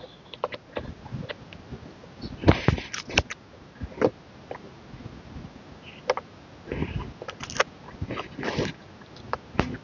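Irregular taps, clicks and short rustles of album packaging being handled by hand, with a few louder crinkling bursts.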